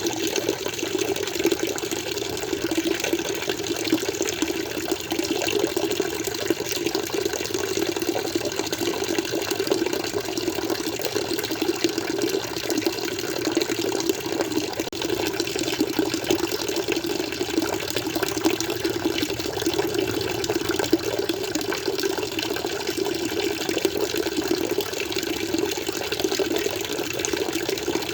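Water flowing steadily in an aquarium, an even rush with no breaks or changes.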